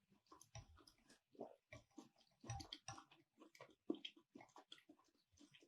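Faint chewing and mouth sounds of a person eating, a string of short, irregular soft smacks and clicks.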